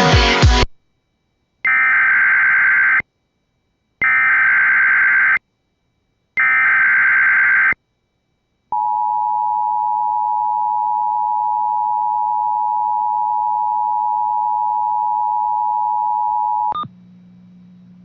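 Emergency Alert System tones: three short bursts of SAME header data, each about a second and a half long, then the steady two-tone EAS attention signal held for about eight seconds before it cuts off abruptly.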